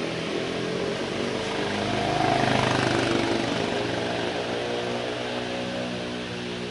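A motor vehicle's engine running, swelling and rising in pitch about two seconds in, then easing off.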